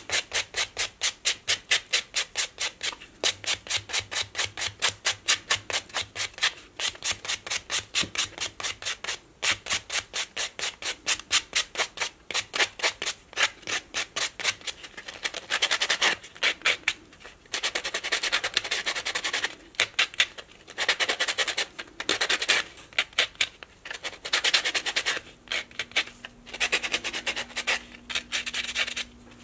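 Nail buffer block rubbed back and forth over polygel nails, buffing them smooth after e-filing. Quick, even strokes about four a second at first, turning in the second half into longer passes of scrubbing with short pauses between them.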